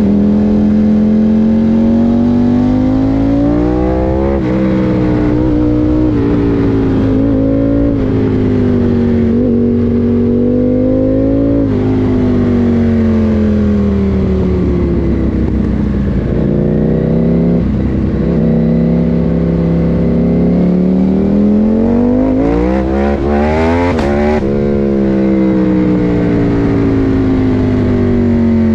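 KTM 890 Duke R's parallel-twin engine, fitted with an Akrapovič exhaust, pulling on the road. Its revs climb and fall with sudden breaks at the gear changes, including a long climb to a peak and a sharp drop about 24 seconds in, over wind rush.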